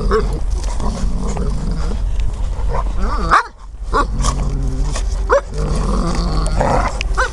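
Young giant schnauzers play-fighting, growling with short sharp barks; the sharpest come about three, five and seven seconds in.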